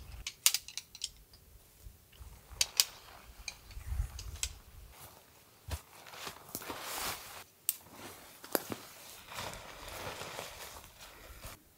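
A tarp rustling and flapping in swells as it is shaken out and spread by hand, with scattered light clicks and taps throughout.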